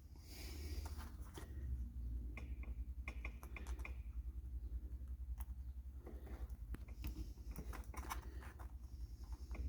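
Light, irregular clicks and taps of small electronic kit parts being handled and sorted on a workbench, over a steady low hum.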